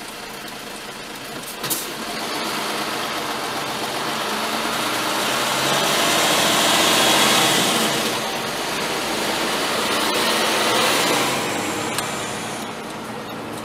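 Engine and road noise of a vehicle heard from inside, rising as it pulls away from a stop, loudest around the middle, then easing as it slows for a turn near the end.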